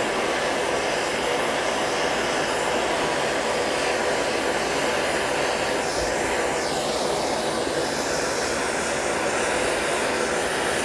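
Hand-held hose-fed gas torch burning with a steady, even rushing hiss as its flame heats a steel car body panel to melt lead body solder into it.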